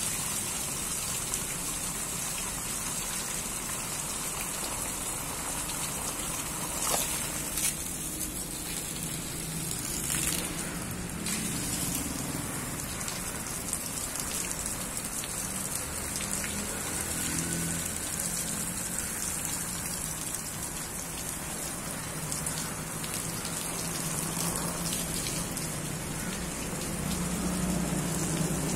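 A jet of water sprayed over tree and plant leaves: a steady hiss and patter of water striking the foliage. There are a couple of brief knocks about seven and eight seconds in.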